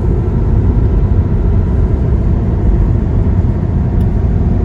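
Steady road and tyre rumble inside the cabin of a moving Tesla Model 3.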